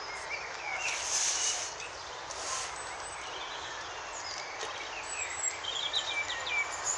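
Small birds chirping now and then, in short clusters of high notes, over a steady outdoor background hiss.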